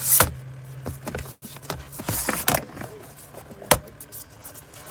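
Irregular clicks and knocks of makeup palettes being handled in a plastic storage drawer, with one sharp clack near the end. A low hum stops about a second and a half in.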